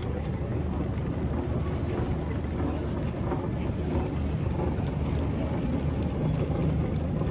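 Steady low rumble of airport terminal background noise, with faint indistinct activity above it.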